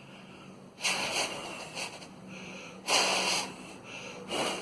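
A person blowing hard through the mouth as a wind sound effect: three hissing gusts of breath, the second the loudest and longest.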